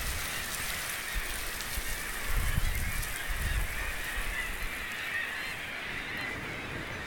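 Steady hiss of steam venting from a crack in the coastal rock. Low gusts of wind buffet the microphone a couple of seconds in.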